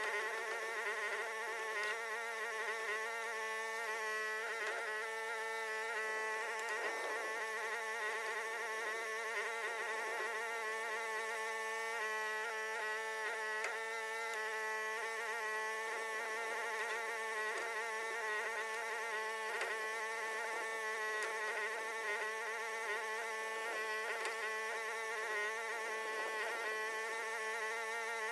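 Huayee HY14C mini excavator's engine running with a steady, high buzzing drone while digging, its pitch wavering slightly from moment to moment.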